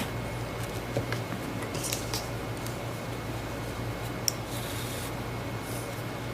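Scissors and light handling of crochet yarn: a few small sharp clicks and a brief soft rustle, over a steady low hum.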